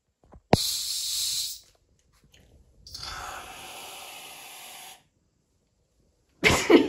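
Aerosol foam can spraying in two bursts. The first is a loud hiss of about a second that starts with a click; after a pause comes a longer, quieter hiss of about two seconds, as foam is piled up into a 'cake' for a face prank.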